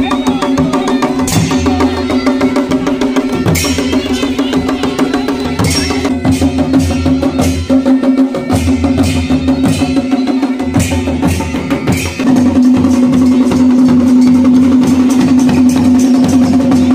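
Kumaoni folk band playing: dhol and damau drums beaten in a fast, dense rhythm with cymbals, over a steady held tone. Louder from about twelve seconds in.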